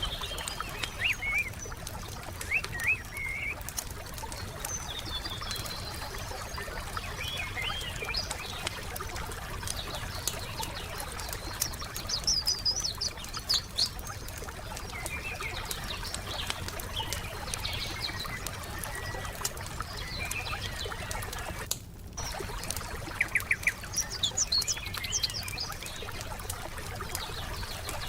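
Wood fire crackling with frequent small pops and snaps, while songbirds chirp and trill in short phrases, the loudest bursts about a second in, around twelve seconds in, and again past twenty-three seconds. The sound drops out for a moment a little before the last burst of song.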